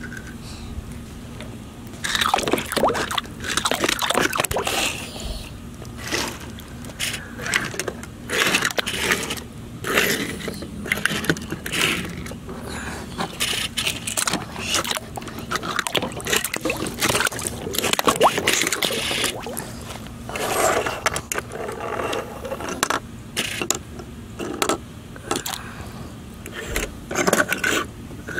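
Die-cast toy cars pushed by hand across a hard board, their wheels and bodies rolling and scraping in short irregular runs after about two seconds, with occasional splashes as cars drop into the water.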